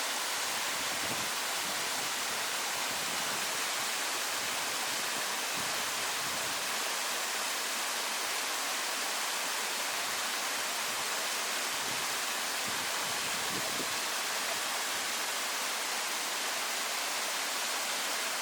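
Waterfall's water falling and splashing in a steady, even rush, mostly hiss with little deep rumble.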